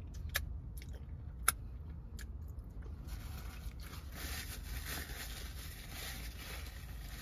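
Quiet chewing of a mouthful of donut with a few small mouth clicks, then from about three seconds in a soft crinkling rustle of a paper donut wrapper being handled, over a low steady hum.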